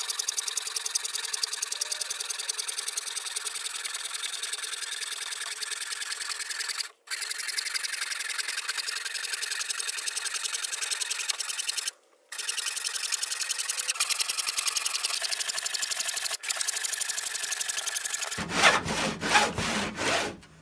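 Handsaw cutting crosswise through the ends of wooden tabletop boards and the plywood clamped beneath them: a fast, even rasping of saw strokes that breaks off briefly twice and grows heavier near the end as the cut goes through.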